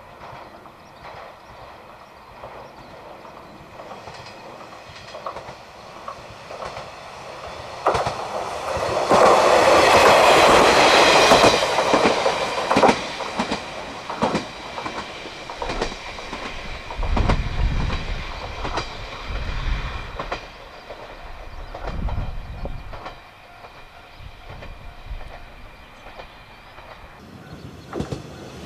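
KiHa 40 diesel railcar running along the line, its wheels clicking over the rail joints. The noise is loudest about nine to twelve seconds in, with a rush and a faint wheel squeal. A deep diesel engine rumble follows in the second half.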